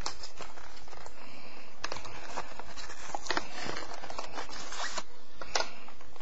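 Mouse packaging being worked open by hand: steady crinkling and rustling with several sharp crackles and snaps.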